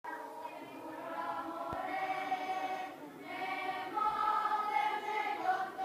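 Children's choir singing, holding long notes, with a short break between two phrases about three seconds in.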